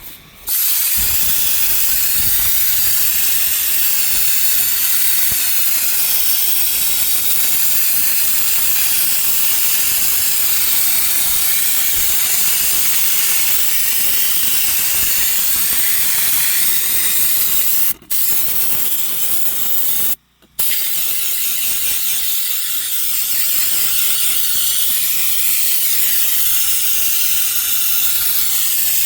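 Compressed-air spray gun hissing steadily as it sprays a thick coat of Lizard Skin sound-deadening coating, with the trigger released briefly about 18 seconds in and again for about half a second near 20 seconds.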